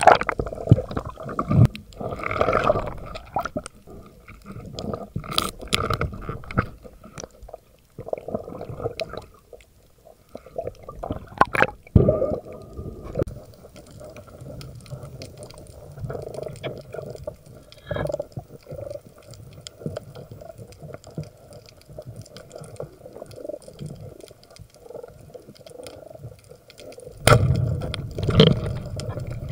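Water sloshing and gurgling, with irregular knocks and splashes; a louder cluster of knocks comes about twelve seconds in and again near the end.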